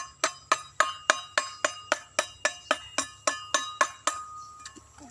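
Rapid, even hammer taps on a metal tool, about four a second, each with a short ring, chipping at a concrete hollow block. The taps stop about four seconds in. Each tap risks cracking the block again.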